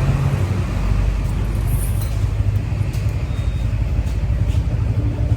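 An engine running steadily, a low rumble with a fast flutter.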